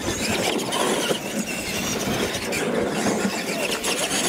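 Radio-controlled monster trucks driving on gravel: their small electric motors whining up and down as the throttle changes, over the steady crunch and hiss of the big tyres on the stones.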